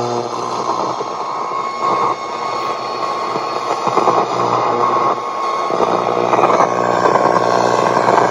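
Soundwave SW-2900 multiband radio on the AM band giving out loud static and buzz with a steady whistle, interference from nearby plugged-in electronics.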